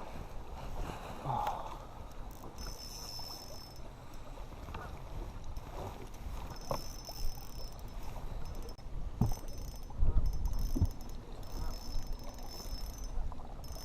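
Wind buffeting the microphone and water lapping around a fishing boat, with a few sharp knocks and a faint high-pitched whine that comes and goes several times.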